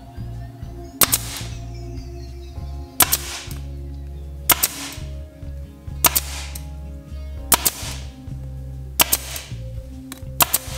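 Power stapler firing 1/4-inch stainless steel staples through a motorcycle seat cover into the plastic seat base, a sharp snap with each shot, seven shots about one and a half seconds apart.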